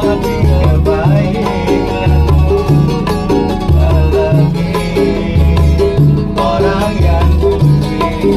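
A small street band playing music inside a city bus: plucked strings over a steady, repeating bass line.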